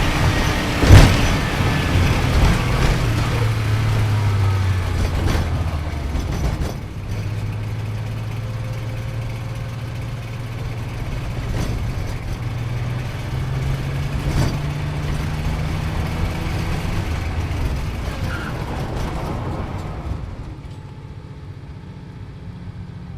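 A car engine running hard under load, its note climbing slowly in steps, with a few sharp cracks, the loudest about a second in. It fades out near the end.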